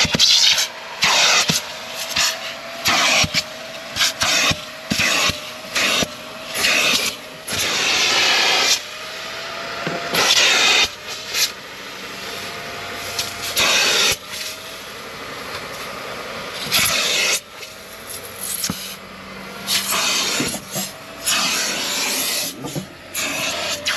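Carpet extractor's clear upholstery hand tool worked in quick repeated strokes over a fabric car seat: a hiss of spray and suction with each pass, and a short whistle from the suction with many of the strokes.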